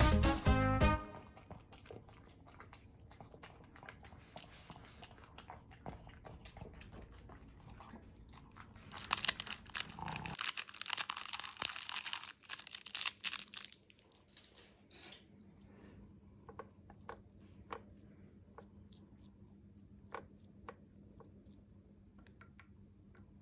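Dog food crunched in a pug's mouth with faint clicks at the bowl, then a louder rustle of a paper medicine sachet as its powder is shaken out onto dry dog food, followed by light clicks of chopsticks stirring the powder into the food in the bowl.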